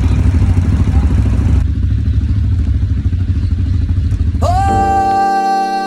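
A loud, low rumbling noise with a rapid flutter, like a vehicle ride or wind on the microphone. About four and a half seconds in, music comes in with a long held high note over steady chords.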